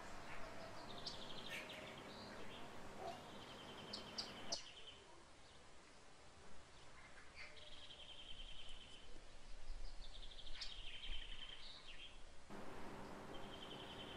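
Small birds chirping, with short buzzy trills and quick high notes every second or two, over a faint steady hum that drops out for a stretch in the middle.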